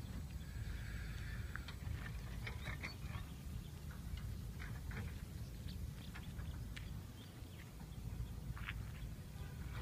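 Scattered short, high chirps from a flock of small birds wheeling overhead, over a low steady rumble.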